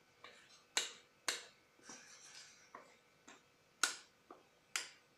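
Sharp, irregular clicks and knocks of a utensil against a mixing bowl while thick semolina batter is scraped out into a baking plate, with a brief scrape about two seconds in.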